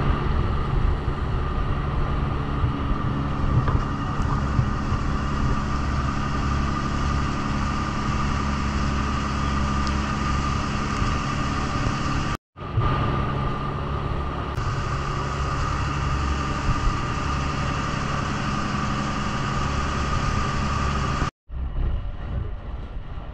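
Motorboat engine running steadily at an even pitch, cutting out abruptly for an instant twice.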